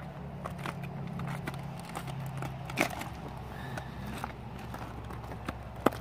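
Scattered clicks and crunches of oyster shells and beach stones being picked through and stepped on while gathering oysters, with a sharper click about halfway and another near the end, over a low steady hum.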